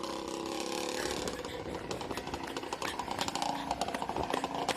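Yamaha Blaster ATV's single-cylinder two-stroke engine running, then rising in pitch about three seconds in as it is given throttle.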